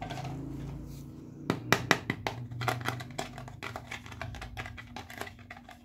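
Small hard-plastic toy mobile phone being handled: a few sharp clicks and taps about one and a half seconds in, then a run of lighter plastic clicks and taps.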